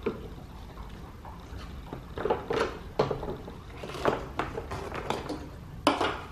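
Scattered plastic clicks, knocks and rustles as gloved hands work an electrical connector loose behind a car's headlight and bumper cover.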